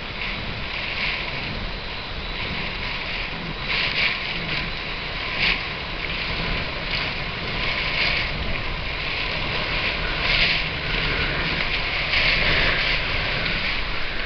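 Hurricane-force wind and driving rain, a steady rushing noise that swells in gusts every few seconds.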